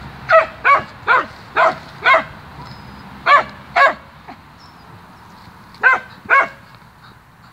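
Small black terrier giving short, sharp barks in quick runs: five in about two seconds, then two, then two more near the end.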